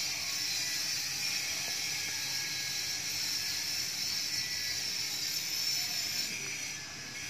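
Steady background hiss with no distinct event, easing slightly near the end.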